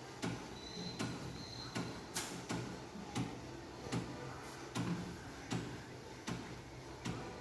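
3D printer with a steady low hum and sharp ticks about twice a second, slightly irregular, with a faint high beep about a second in.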